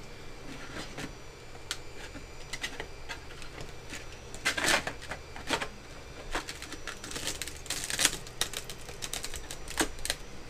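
Irregular clicks, taps and scrapes of hard 3D-printed plastic as a spatula pries and presses a printed mouth insert into a large printed shell, with clusters of louder clicks about four and a half seconds in and again around seven to eight seconds in.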